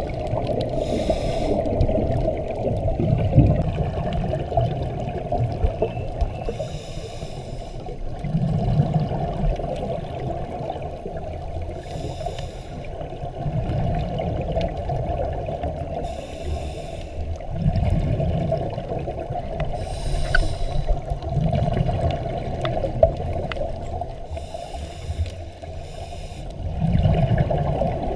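Scuba diver breathing underwater through a regulator: a hissing inhale and a low burble of exhaled bubbles, a breath every four to five seconds.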